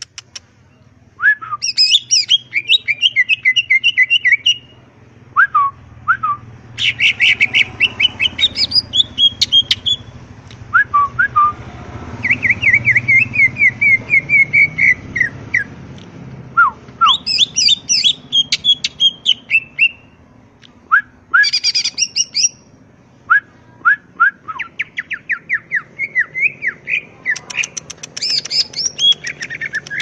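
Male greater green leafbird (cucak ijo) singing its rapid, varied 'ngentrok' song: bursts of fast repeated high notes, broken by short sharp whistles and brief pauses.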